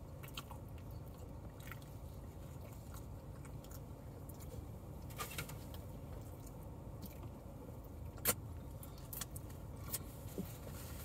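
A person chewing a soft cream-filled zeppole, with faint mouth sounds, small clicks and napkin rustles, and one sharper click about eight seconds in, over a low steady rumble in a car cabin.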